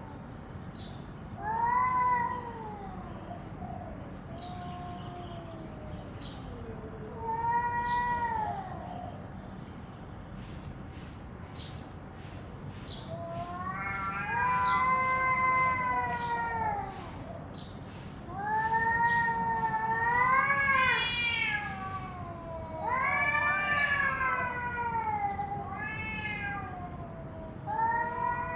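Two cats caterwauling in a fight standoff: long, wavering yowls that rise and fall in pitch, traded back and forth in bouts, growing louder and overlapping in the middle.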